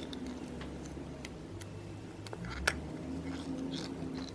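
Small sticky clicks and crackles as product is squeezed from a plastic L'Oréal Accord Parfait tube onto slime, with one sharper click a little past halfway, over a low steady hum.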